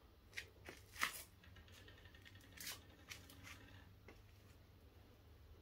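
Silkie hen foraging in dry garden soil among plants: a few faint, brief scratches and rustles over near silence, the clearest about a second in.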